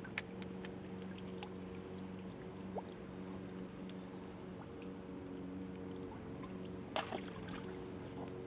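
A steady low mechanical hum with a few sharp clicks and taps, the loudest a pair about seven seconds in.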